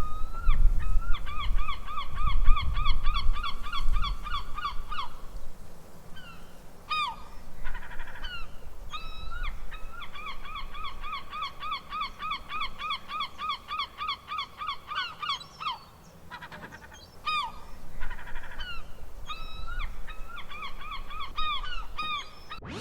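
Gull calling: fast runs of short, repeated yelping notes, about five a second, from about one to five seconds in and again from ten to fifteen seconds in, with single calls in between. A low rumble like wind on a microphone sits under the first few seconds.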